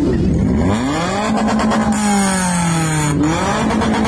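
Heavy motorcycle engines being revved by riders. The pitch climbs about a second in, holds high and sags slightly, then drops sharply and rises again about three seconds in.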